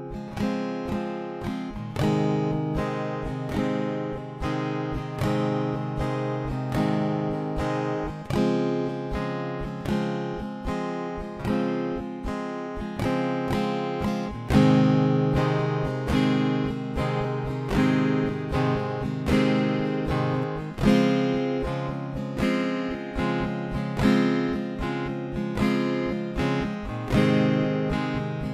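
Background music: an acoustic guitar strumming in a steady rhythm, about two strokes a second, with no singing.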